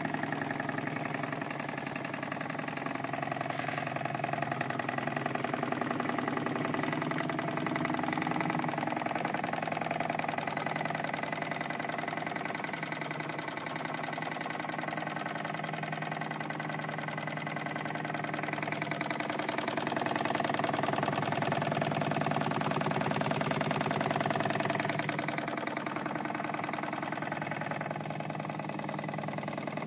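Jensen Model 35 toy steam engine with an unplated brass boiler, running steadily under steam: a fast, even chuffing and mechanical clatter that swells a little about two-thirds of the way through.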